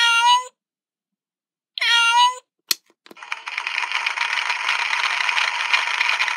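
Sid the Science Kid talking microphone toy playing sound effects through its small speaker. Two short pitched electronic blips are followed by a click of a button, then a recorded applause effect from about three seconds in.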